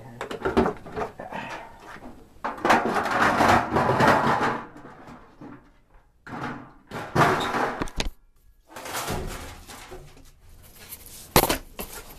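Furnace filter and sheet-metal parts being handled and slid into place: irregular scraping and sliding with a few sharp metal knocks, the loudest knock near the end.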